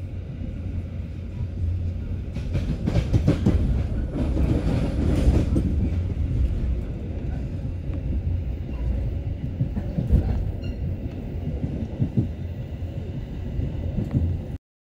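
Passenger train running at speed, heard from inside the carriage: a steady low rumble of wheels on rails with scattered clicks and clatter, thickest a few seconds in. It cuts off suddenly near the end.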